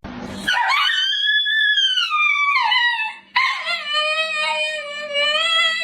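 A dog howling: two long howls, the first rising and then falling away, the second held at a steadier pitch.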